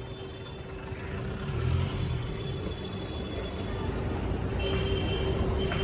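City street traffic: vehicle engines running with a steady low rumble that grows a little louder about a second and a half in.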